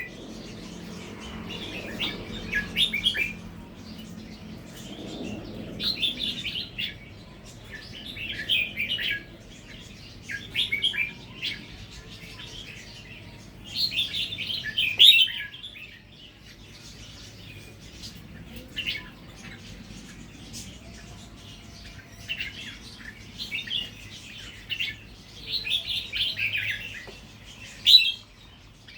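Red-whiskered bulbul singing: short, quick phrases of high whistled notes, each about a second long, repeated every two to three seconds with brief pauses between.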